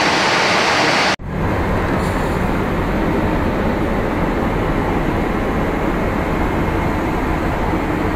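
Steady in-flight cabin noise of a Boeing 747-8 airliner, a constant rush of airflow and engines. It breaks off for an instant about a second in, then carries on deeper and duller inside the aircraft lavatory.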